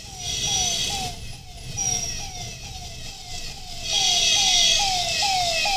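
Ambulance siren sounding in quick repeated falling sweeps, about two a second, growing louder from about four seconds in as it draws closer, over low road and wind noise from the moving motorcycle.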